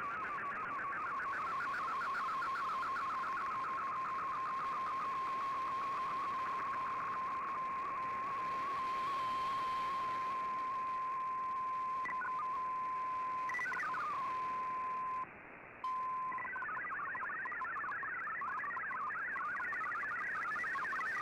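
Shortwave digital-mode broadcast heard through a communications receiver, over steady shortwave hiss. An MFSK picture transmission's warbling tone settles into one steady tone, which cuts off briefly about fifteen seconds in. Then MFSK data tones resume, hopping rapidly as text is sent.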